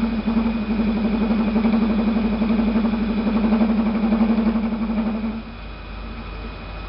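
Kosmos metal lathe chattering loudly during a cut, a rough, wavering hum, until the cut ends about five seconds in and the machine runs on more quietly. The chatter comes from play in the spindle bearings and the feed mechanism.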